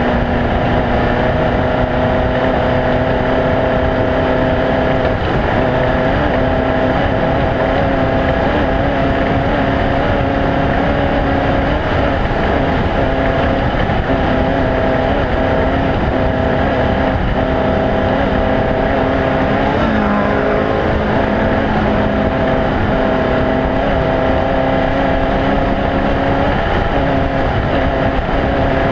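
Off-road race vehicle's engine running steadily at speed under a dense rumble of road and wind noise. Its steady hum shifts pitch slightly a few times, about five seconds in and again about twenty seconds in.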